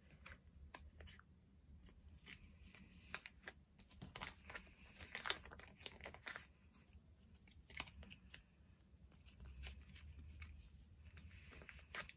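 Faint rustling and crinkling of plastic photocard sleeves and binder pages being handled, with many small scattered clicks and taps.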